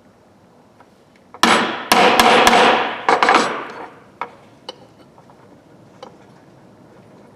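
Hammer strikes on a metal ratchet: a quick run of about five sharp, ringing knocks over roughly two seconds, starting about a second and a half in, followed by a few light clicks.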